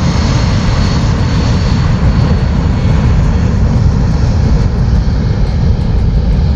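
Steady loud low rumble with hiss, even throughout, with no distinct knocks or calls.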